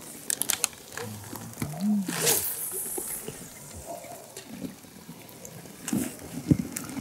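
Light water splashing and lapping at a small boat's side, with a few sharp clicks and knocks and a short hiss about two seconds in.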